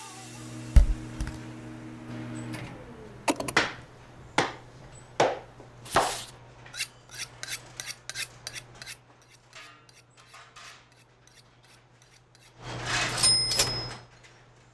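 The dubstep track has ended and only non-musical sound effects remain: a steady low hum, a thump about a second in, then a run of sharp clicks and short swishes. A louder noisy whoosh lasting about a second comes near the end.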